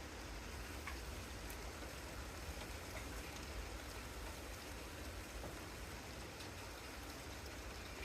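Steady rain falling, with a few faint drop ticks, over a steady low rumble.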